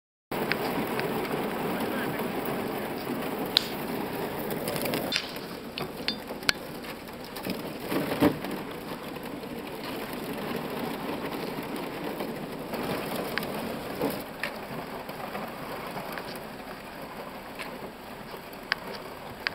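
Thin skim ice on a lake crackling and crunching as a canoe hull breaks through it, with scattered sharp cracks; the crackle grows fainter in the second half.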